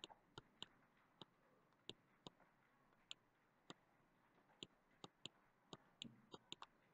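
Near silence with faint, irregular clicks, about two a second, from the computer input used to handwrite on screen.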